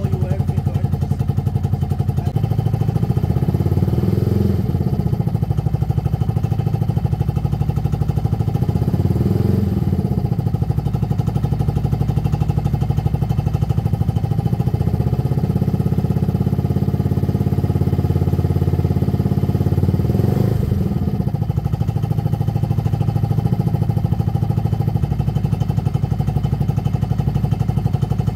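Benelli Velvet scooter engine running without an airbox or air filter while it warms up, idling with a steady pulse; the revs rise and fall briefly a few times, and stay up for several seconds in the second half.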